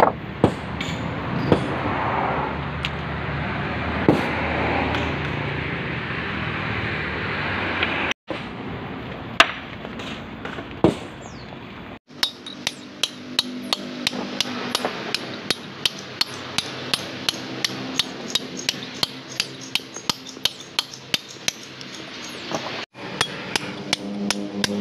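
Small hand hammer striking a steel chisel driven into stone. A few separate, heavier blows come first, then a fast, even run of taps, about three to four a second.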